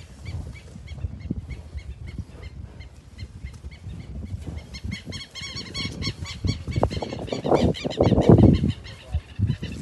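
Farmyard fowl calling over and over in short honking notes, with a low rushing noise that swells near the end.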